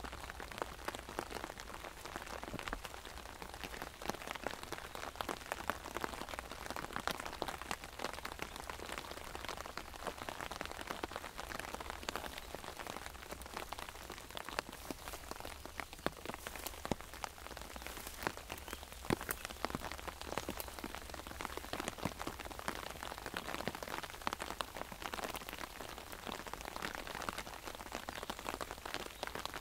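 Rain falling on an umbrella: a steady hiss of many drops with frequent sharper ticks of single drops striking the canopy.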